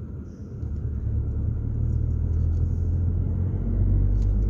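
Car running on the road, heard from inside the cabin: a low engine and road rumble that grows louder from about a second in as the car picks up speed.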